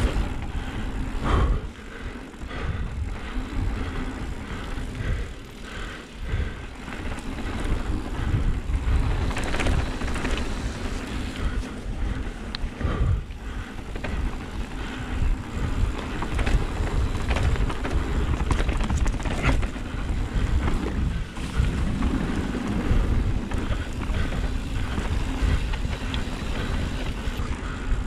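Mountain bike descending a rough trail, heard through an action camera: wind rushing over the microphone and tyres running over dirt and rocks, with frequent short knocks and rattles from the bike.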